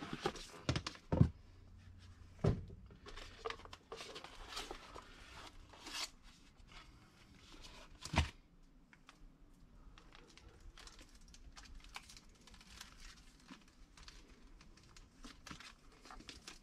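Unpacking by hand: a cardboard box and its packing being handled, with scattered rustling and crinkling and a few sharper knocks, the loudest about a second in, at two and a half seconds and at eight seconds.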